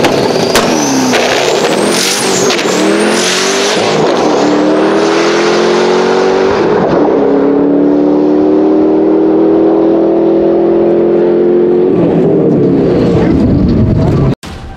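Twin-turbo 427 V8 of a Corvette Grand Sport at full throttle on a drag-strip pass, shifted through its six-speed manual. The engine note climbs and drops at shifts about one, two, four and seven seconds in, then pulls long in the top gear before backing off about twelve seconds in, with a high whine climbing over it in the early gears. The sound cuts off suddenly near the end.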